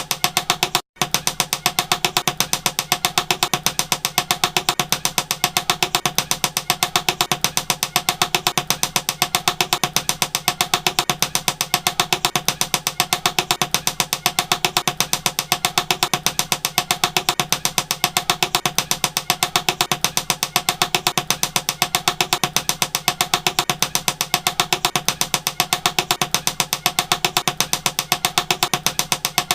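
Rapid, evenly spaced tapping, several strikes a second, kept up without a break over a steady hum.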